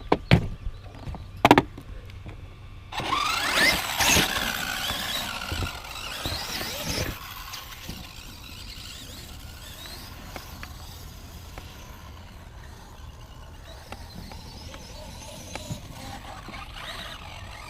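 Traxxas X-Maxx RC monster truck's brushless electric motor whining up and down in pitch as it accelerates, about three seconds in, after two sharp knocks in the first two seconds; then a lower, steady running noise.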